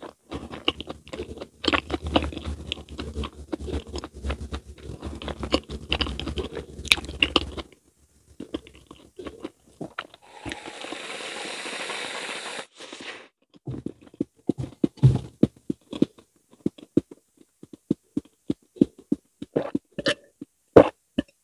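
Close-miked chewing and wet mouth sounds of soft fruit mochi with whipped cream: dense smacking for the first seven or so seconds, then a steady hiss of about two and a half seconds midway. Scattered clicks follow, with a few louder gulps near the end as she drinks.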